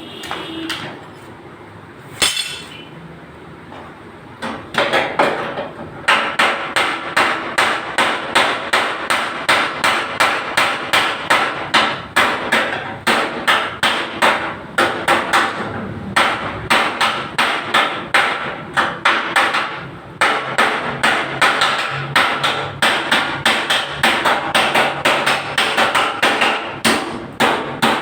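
Hammer beating out a dented sheet-metal car body panel on a crash-damaged Suzuki Alto, in quick, even blows about three a second. A single blow lands about two seconds in, then steady hammering starts a couple of seconds later, with short pauses partway through.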